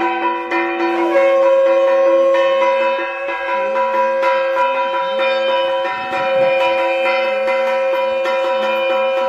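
Music with many bell tones ringing and quick repeated strokes. A long steady note comes in about a second in and holds.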